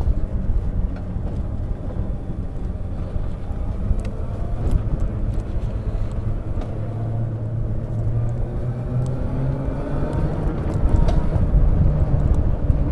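APtrikes125 mini jeep driving, its small engine running steadily, then rising in pitch as it speeds up from about eight seconds in. Light rattles and clicks come through over the engine noise.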